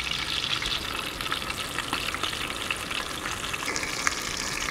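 Sand sole frying in hot oil: a steady sizzle with many small crackles as the fins crisp.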